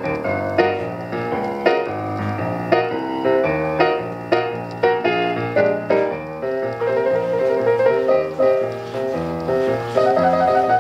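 Piano music played from a 45 rpm record on a 1950s RCA Victor record changer, heard through the tube console's speaker: a continuous run of piano notes with little of the highest treble.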